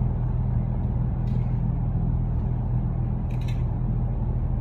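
Steady low hum of a running motor, with a faint hiss above it and a couple of brief faint clicks.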